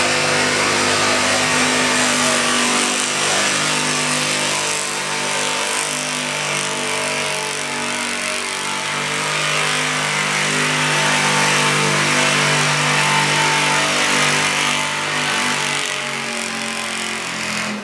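Third-generation Dodge Ram pickup's engine held at high revs under heavy load, pulling a weight-transfer sled in a truck pull. The engine note dips briefly about halfway, eases near the end, then cuts off as the pull ends.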